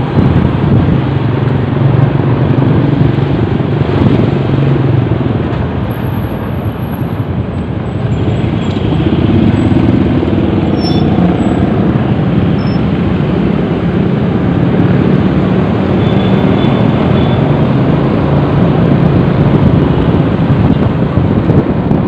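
Road noise from a moving vehicle: a steady engine note under heavy wind noise on the microphone.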